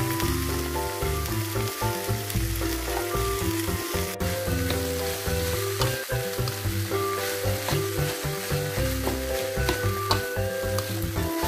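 Fried rice sizzling in a hot wok as a metal spoon stirs and scrapes it around the pan, with a sharp knock about four seconds in. Background music plays throughout.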